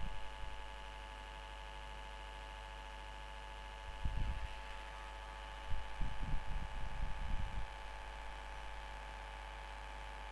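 A steady background whine made of many tones at once, the noise the uploader apologises for as annoying. Low rumbling thumps come in about four seconds in and again for about two seconds from around six seconds.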